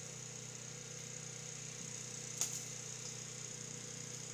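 Steady low hum of an idling engine with a steady high hiss over it, and one sharp click about two and a half seconds in.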